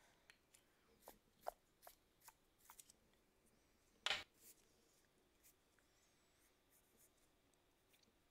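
Pencil being sharpened in a small handheld sharpener: a run of faint crunching clicks about every half second, then one louder knock about four seconds in, with a few faint ticks after.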